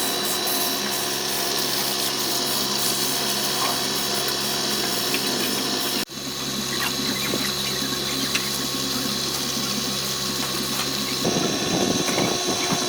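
Woodturning lathe running with a steady motor hum and a hissing, scraping overlay typical of a turning tool cutting the spinning wood. It breaks off for an instant about six seconds in, and a rougher low rumble joins near the end.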